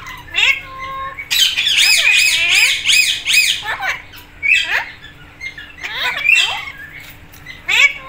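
Alexandrine and Indian ringneck parakeets squawking: scattered single harsh calls, and from just over a second in to about three and a half seconds a fast run of repeated calls, about four a second.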